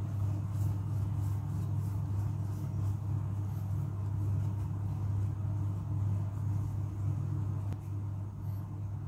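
A steady low mechanical hum, with one faint click near the end.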